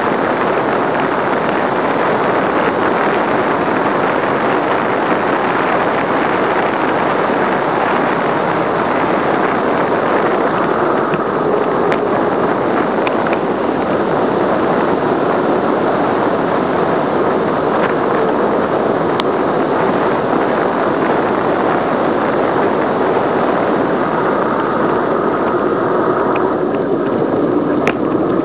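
Wind rushing over the microphone during a fast bicycle descent on an asphalt road, a loud, steady rush with tyre hiss mixed in and a few faint ticks.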